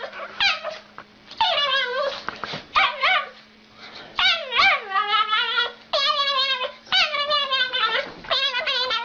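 A dog giving a quick string of high, wavering whining and yipping calls, about eight in all, each under a second long.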